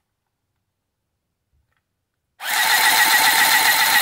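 Battery-powered Handy Stitch handheld sewing machine running and stitching through cardstock: a loud, steady motor buzz with a fast, even pulsing of the needle strokes. It starts after about two and a half seconds of near silence.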